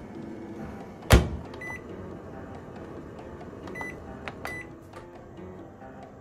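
Toshiba ER-PD7 oven-microwave: its door shuts with one sharp knock about a second in. Then the control panel gives three short high beeps as the 30-minute time is set and start is pressed to bake.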